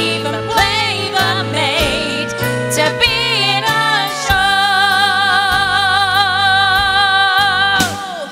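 A woman singing a show tune over accompaniment, moving through short melodic phrases, then holding one long note with wide vibrato from about four seconds in until just before the end.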